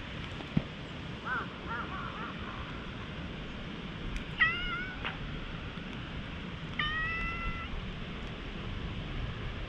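Tabby cat meowing twice while being stroked: a short meow about four and a half seconds in, then a longer, level meow near seven seconds.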